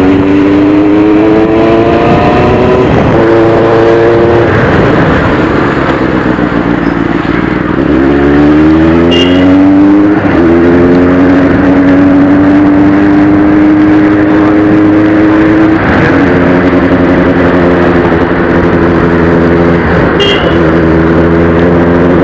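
Benelli motorcycle engine on its stock exhaust, heard from the bike while riding: the revs climb and drop back several times as it goes up through the gears, then hold steady at cruising speed. Heavy wind noise on the microphone runs underneath.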